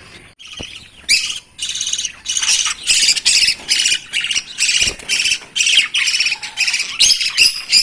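Caged lovebirds squawking: a run of short, shrill calls about two a second, starting about a second in.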